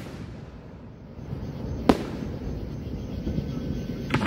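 Aerial firework shells bursting. One sharp bang comes about two seconds in and two close bangs come at the very end, with a low rumble between them.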